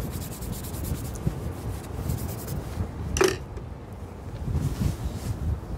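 Wind buffeting the microphone in a low, steady rumble, with one short sharp sound about three seconds in.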